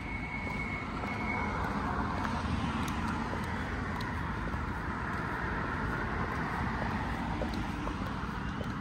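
Road traffic: cars driving past on the street, their tyre and engine noise swelling a couple of seconds in and staying steady over a low rumble. A few faint clicks of stiletto heels on the pavement come through.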